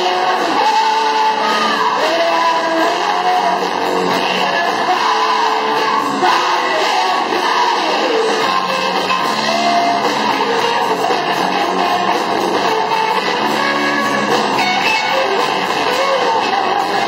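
Live rock band playing an original rock song, with strummed electric guitar to the fore.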